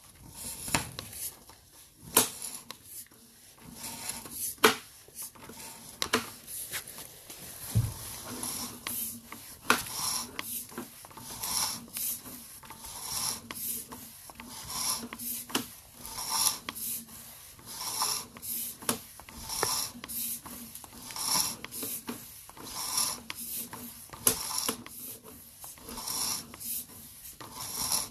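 Sewer inspection camera's push cable being pulled back out of the line in steady strokes: rhythmic rubbing and rasping, about one stroke every three-quarters of a second, with scattered clicks.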